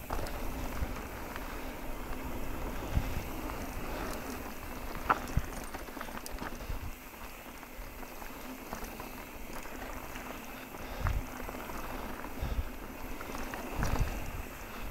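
Mountain bike rolling down a dirt and rock singletrack: a steady rush of tyre and trail noise, with the bike knocking and rattling over bumps, a few low thumps, and a sharp click about five seconds in.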